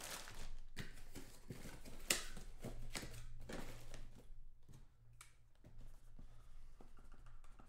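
Trading cards and their wrappers being handled on a table: a run of soft rustles, taps and clicks, busy for the first four seconds or so and then sparser and quieter, over a faint steady low hum.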